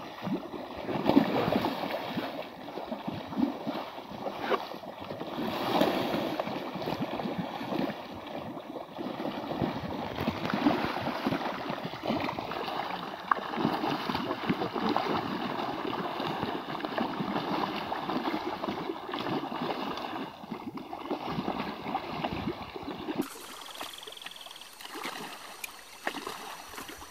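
Many large fish thrashing at the surface of a pond, an irregular churning and slapping of water. A few seconds before the end it gives way to quieter, steadier sound from the lake.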